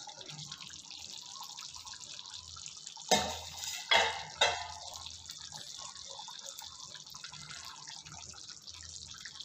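Thick chicken gravy simmering in an open kadai: a faint steady bubbling and hiss, with three louder sharp sounds a little over a third of the way through.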